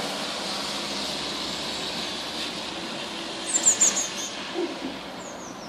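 Van tyres hissing on a wet road as it passes, the hiss fading slowly. About three and a half seconds in, a blue tit gives a quick run of high, falling chirps, with a few fainter ones near the end.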